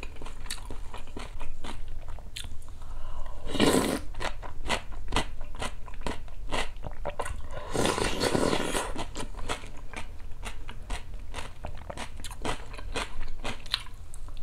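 Close-miked chewing and crunching of a mouthful of muksabal: acorn jelly in cold broth with cucumber and kimchi, many small crunches in a row. Loud slurps of the broth from a spoon come about four seconds in and again around eight seconds.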